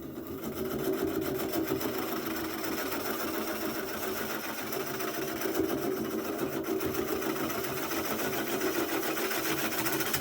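Turning tool cutting into a tamarack bowl blank spinning slowly on a wood lathe: a steady, rapid chatter of the tool against the wood. It builds up over the first second.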